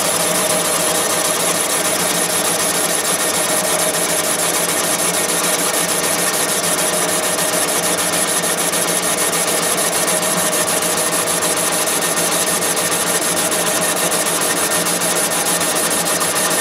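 Thompson boring bar running steadily as its carbide cutting tool feeds down an engine cylinder bore, taking an oilless cut. It is a loud, even machine sound with a constant high whine.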